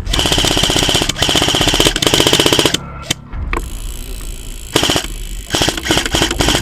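Airsoft M249 replica firing full-auto: a fast, even rattle with a steady whine under it, one long burst of nearly three seconds, a brief lull, then more rapid fire near the end.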